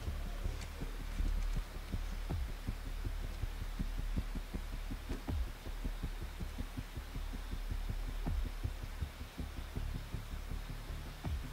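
Low, throbbing rumble with a steady hum underneath, from a TV drama's soundtrack during a tense scene.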